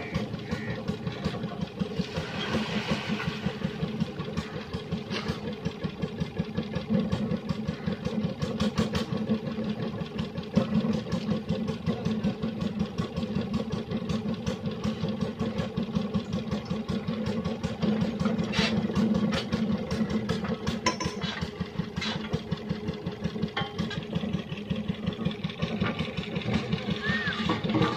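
Stationary engine running steadily with a fast, even chugging, driving the water flow for tubewell drilling. A few sharp metallic clicks come about two-thirds of the way through.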